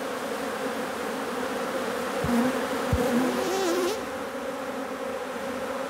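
A honeybee colony buzzing at an opened hive box: a steady hum from many bees, with single bees droning close past, their pitch wavering, loudest between about two and four seconds in.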